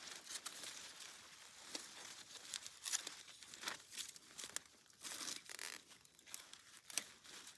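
Rustling and crinkling from tomato plants and twine being handled as the plants are tied up, with irregular sharp snaps and crackles.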